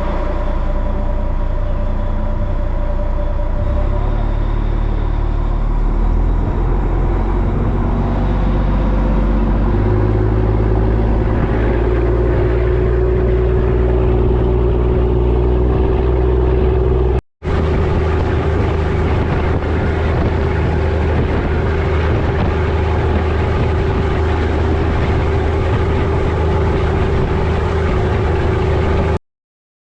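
Engine running steadily: a deep, loud hum with steady tones above it. The drone shifts a little a few seconds in and again near the middle, and cuts out briefly once.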